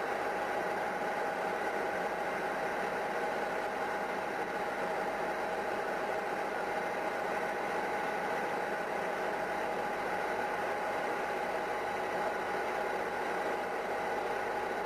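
Steady machinery drone with several constant whining tones, unchanging throughout.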